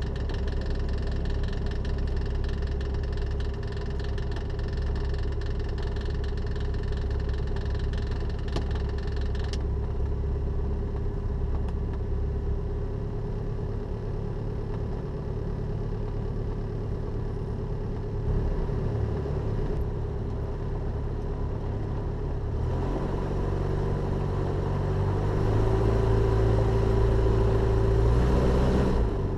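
Jabiru J170's four-cylinder Jabiru 2200 engine and propeller running at low taxi power, heard from inside the cockpit. A little past two-thirds of the way through the power comes up and the engine gets louder and higher.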